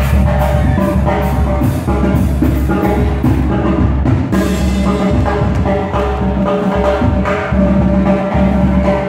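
Loud live band music, with a sousaphone in the bass and drums keeping a steady dance beat.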